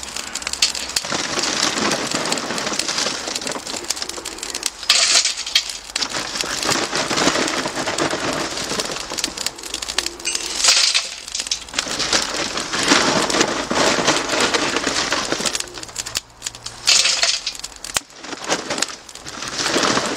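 Lump-wood charcoal being tipped into a metal chimney starter, the pieces clattering and crunching against each other over a continuous crackling hiss, with louder surges a few times.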